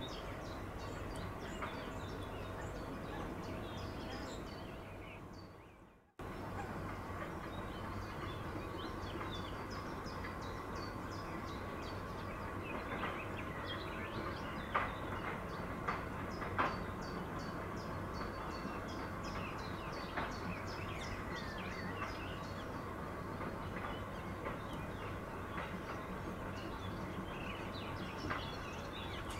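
Small songbirds chirping in quick high series, over and over, above a steady low hum. The sound fades away and breaks off about six seconds in, then comes back, with a couple of sharp clicks near the middle.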